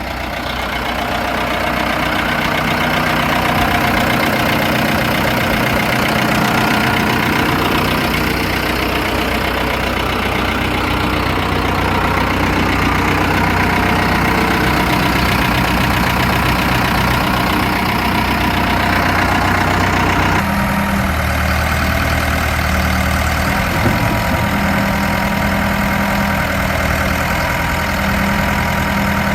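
1993 Ford backhoe loader's diesel engine running steadily at idle. About two-thirds of the way through, the tone changes abruptly and becomes deeper and heavier.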